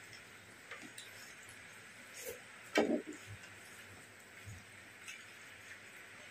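Quiet eating sounds from a meal of rice and fish curry: scattered faint clicks and ticks of fingers and food against a plate, with one short louder knock about three seconds in.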